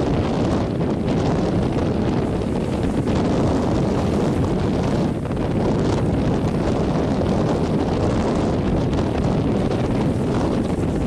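Strong wind buffeting the microphone over breaking surf, a steady loud noise with no clear pitch.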